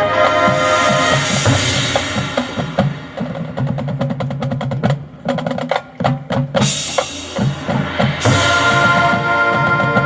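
High school marching band playing: held brass and wind chords give way to a drum passage of separate snare and bass drum strokes in the middle, and the full band comes back in with sustained chords about eight seconds in.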